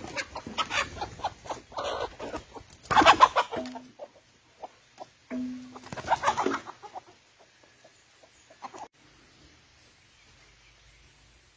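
Chickens clucking and calling in loud irregular bursts, loudest about three and six seconds in, dying away to faint outdoor background after about seven seconds.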